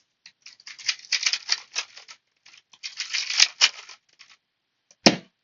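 A 3x3 speed cube being turned rapidly, its layers clicking and clacking in two quick flurries, then one sharp click near the end.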